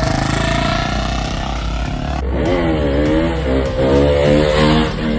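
Royal Enfield Bullet's single-cylinder engine revving as the bike pulls away. About two seconds in it gives way to another motorcycle engine whose pitch rises and falls again and again under the throttle while the rider holds a wheelie.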